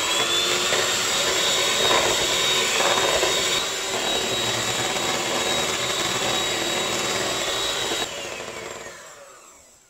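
Electric hand mixer running, its twin beaters whipping a runny batter of eggs, yogurt and grape molasses in a bowl: a steady motor whine that starts suddenly and rises briefly to speed. It is switched off about eight seconds in and winds down.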